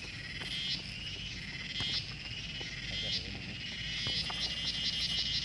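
Chorus of wild animal calls, high-pitched chirping that turns into a rapid, regular pulsing about four seconds in.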